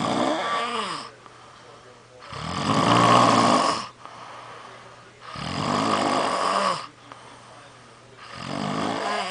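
A sleeper snoring: four loud snoring breaths about three seconds apart, the loudest about three seconds in, several sliding down in pitch as they end.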